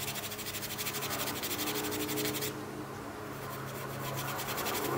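Steel wool scrubbed back and forth over the painted M1A rifle stock in quick, even strokes, scratching off loose, poorly bonded paint, with a brief pause about halfway. A low steady hum runs underneath.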